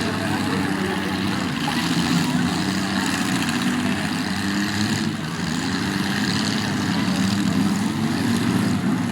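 Demolition derby car engines running, their pitch wavering up and down as they rev.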